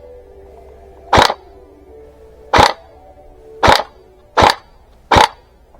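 Airsoft gun firing single shots, five sharp cracks about a second apart.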